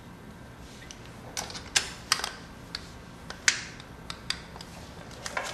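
About ten sharp metallic clicks and clinks at irregular spacing, starting about a second in, from a spark plug socket wrench being turned as a spark plug is screwed back into a motorcycle engine's cylinder head.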